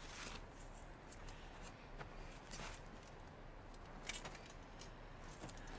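Near silence: quiet room tone with a few faint, scattered clicks and rustles.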